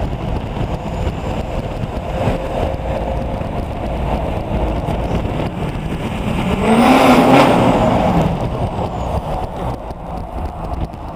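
Chevrolet 2500HD's Duramax turbo-diesel V8 running through its bed-mounted exhaust stacks. About six and a half seconds in it is revved hard: the engine note rises in pitch and grows loud, then falls away about a second and a half later.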